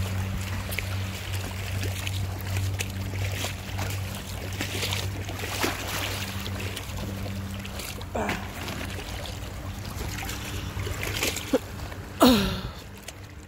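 Seawater lapping and splashing among shoreline boulders, over a steady low hum. About twelve seconds in there is a brief, louder sound that falls in pitch.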